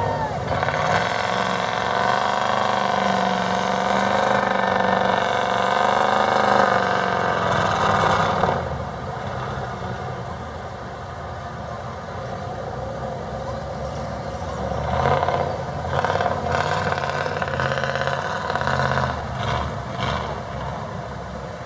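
Mud truck engine running hard at high revs for about eight seconds, its pitch wavering, then easing off suddenly to a quieter, lower, uneven running.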